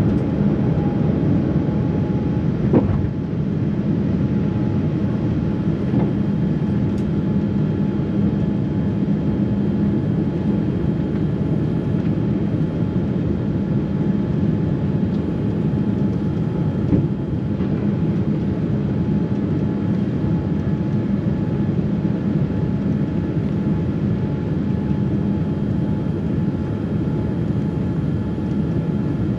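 Steady cabin roar of a Boeing 787 in its climb after takeoff, heard from a window seat over the wing: engine and airflow noise with a steady low hum running through it. A brief faint knock sounds about three seconds in.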